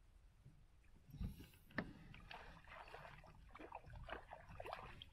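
Two dull knocks about a second in, then light, irregular splashing and gurgling of water beside a small boat as a caught asp is let go over the side.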